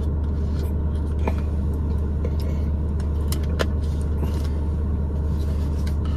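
Steady low rumble of a running car heard from inside its cabin, with a few faint clicks.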